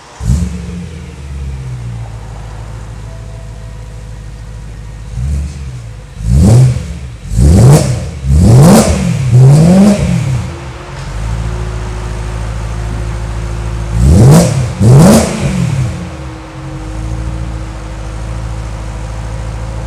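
BMW M3 with an Armytrix aftermarket exhaust idling, with a sharp burst right at the start, then a run of quick throttle blips in the middle and two more about two-thirds through, each revving up and dropping straight back to idle.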